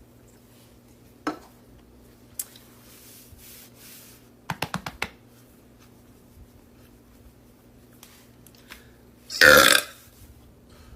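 A single loud belch, lasting just over half a second, near the end; a quick run of about five small clicks comes midway.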